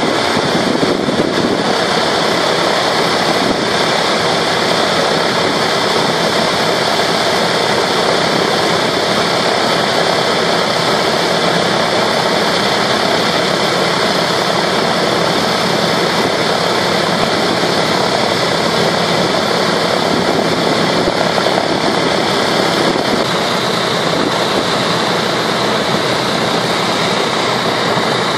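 B-17 Flying Fortress's Wright R-1820 Cyclone radial engines running at idle, a loud, steady, even sound.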